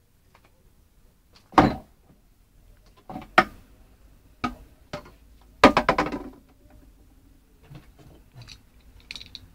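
A string of sharp knocks and cracks, the loudest about a second and a half in, then a quick rattling cluster of clicks about six seconds in, with fainter ticks after.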